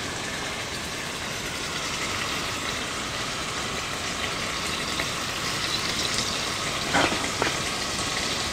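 Seasoned chicken pieces sizzling steadily as they brown in hot oil in a heavy pot. A couple of short clicks about seven seconds in as another piece is set in with tongs.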